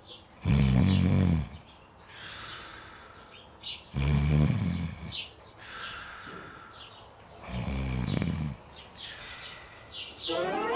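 Cartoon snoring: three loud, rough snores about three and a half seconds apart, each followed by a softer, higher breath out. Near the end a quick rising sound begins.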